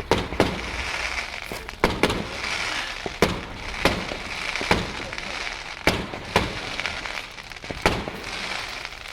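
Fireworks going off in a display: a run of sharp bangs, roughly one a second, each followed by crackling.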